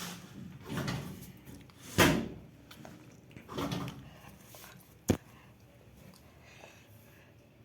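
Knocks and handling noises: scuffs and rustles, one loud knock about two seconds in and a short sharp click a few seconds later.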